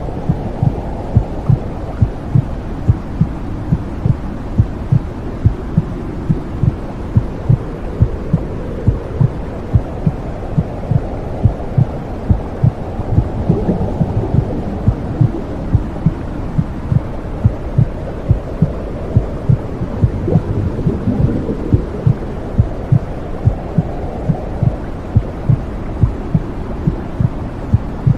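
Womb sound for soothing a baby: a steady low whooshing rumble with a regular heartbeat thumping about twice a second.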